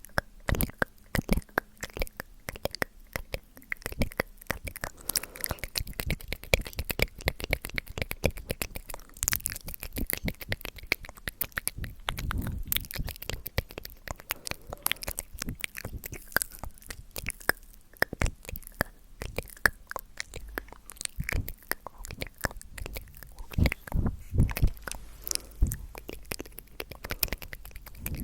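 ASMR mouth sounds close to the microphone: a dense, irregular stream of wet clicks, pops and smacks from lips and tongue.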